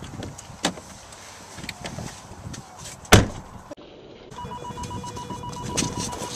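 A car door slams shut about three seconds in. After a cut, a car's warning chime sounds as a fast, steady run of high electronic beeps.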